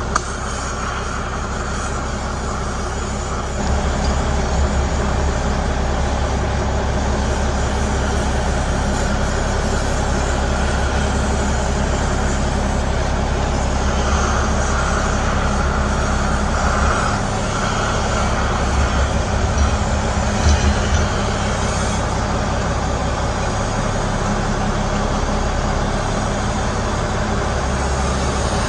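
Oxy-fuel torch flame hissing steadily while it heats a steel ABS tone ring on a brake rotor hub. A low rumble runs underneath and gets louder a few seconds in.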